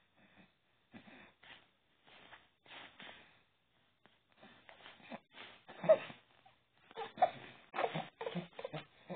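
Infant making breathy grunts and short coos, sparse and faint at first, then coming quicker and louder in the second half, with the loudest about six seconds in.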